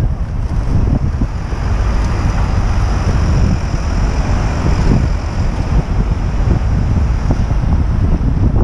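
Wind buffeting the microphone of a camera on a moving bicycle, a steady low rumble, with city road traffic underneath.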